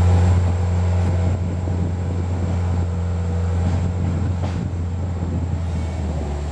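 Steady low drone of an idling vehicle engine, with a thin constant high whine above it.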